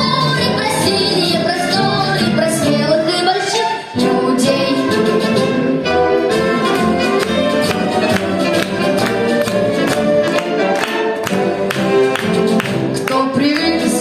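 A singer with orchestral accompaniment, the music dipping briefly about four seconds in.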